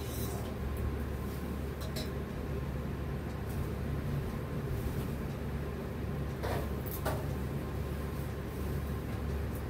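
Silk saree rustling in brief strokes as it is handled and arranged, the clearest two a little after six and seven seconds in, over a steady low hum.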